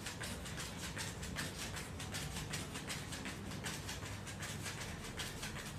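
Quick, even footfalls of sneakers on an exercise mat from running in place with high knees, over a low steady hum.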